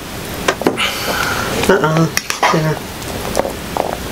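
Serving utensils clinking and scraping in a pan of pasta as food is served out, a few short clicks spread through, with a couple of brief vocal sounds around the middle.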